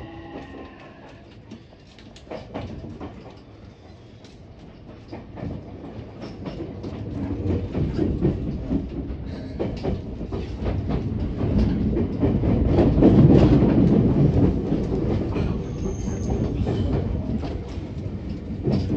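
Running noise of a JR West 225 series electric train heard from inside the passenger car, with many quick clacks of the wheels over the rail joints. It grows steadily louder over the first two-thirds, then holds.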